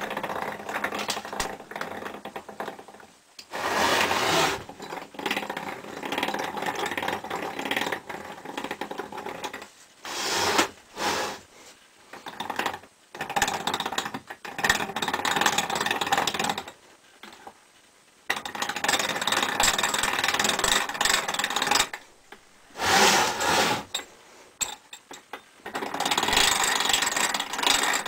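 Sectioned lawn mower constant-mesh gearbox being turned by a hand crank, its gears meshing and running in stretches of a few seconds with short stops between.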